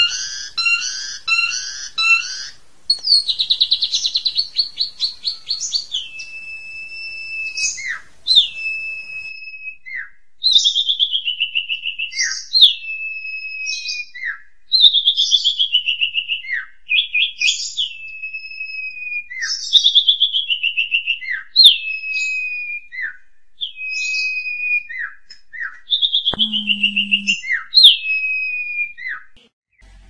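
Asian pied myna singing. It opens with a quick run of repeated notes and a fast trill, then repeats a phrase about every two seconds: a clear whistle sliding down, followed by a few sharp short notes.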